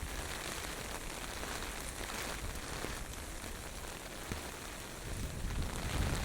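Typhoon rain falling steadily, with a low rumble of wind that grows stronger about five seconds in.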